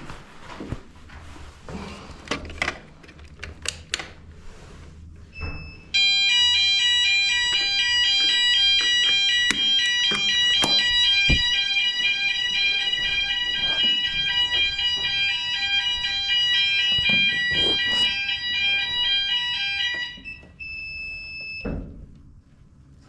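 Building fire alarm sounders going off in a test: a loud electronic alarm tone that rapidly alternates between pitches, sounding about fourteen seconds and then cutting off suddenly. A short single electronic beep sounds just before it starts and again just after it stops, and clicks and knocks of handling come before it.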